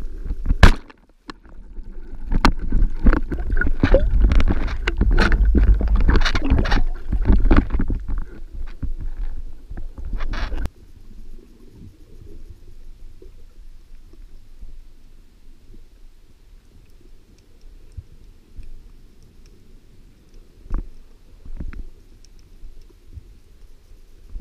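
Water splashing and knocking against the camera for about ten seconds, cutting off abruptly to a quiet low rumble with a few faint clicks.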